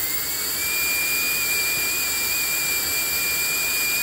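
Supercharger blower running flat out, forcing air into a diesel heater's inlet at about 4,000 feet per minute: a loud steady rush of air under a high whine that dips slightly and climbs back within the first half second, then holds.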